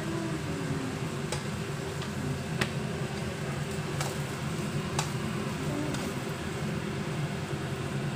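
Metal spatula stirring and scraping rice in a wok over a gas burner, with several sharp taps of the spatula against the pan over a steady low hum.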